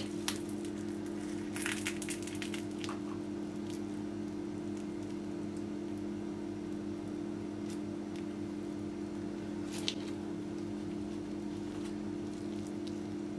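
Crisp, flaky baked boyoz pastry being pulled apart by hand, its thin layers giving faint crackles: a cluster in the first three seconds and one more near ten seconds. A steady low hum runs underneath.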